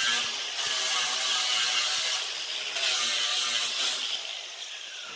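Angle grinder grinding a steel bracket, with a steady high hiss over the motor's whine that surges as the disc bites the metal. Near the end the grinder is let off and its pitch falls as it winds down.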